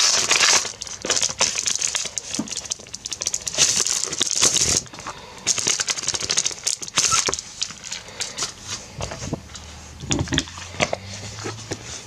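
Plastic packaging bag crinkling and rustling as it is opened and clear files are slid out. It is busiest in the first five seconds, then comes in shorter scattered crackles.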